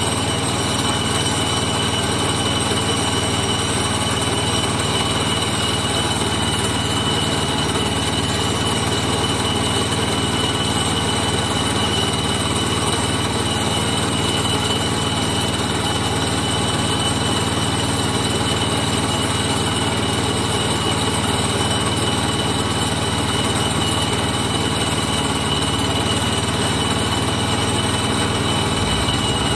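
An engine running steadily at constant speed, with a steady high whine over it.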